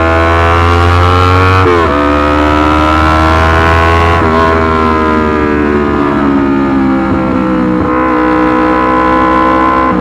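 Yamaha R25 parallel-twin engine through a Racefit Slash aftermarket exhaust, accelerating under load: the pitch climbs, drops sharply at an upshift under two seconds in and again about four seconds in, then holds fairly steady.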